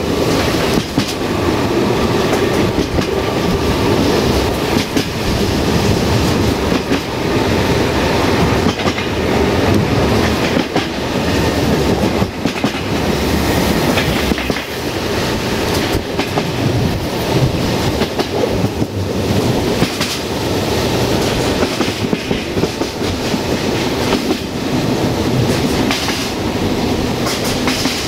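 VT614 diesel multiple unit running along the line, heard on board: a steady rumble of the moving train with wheels clicking over the rail joints.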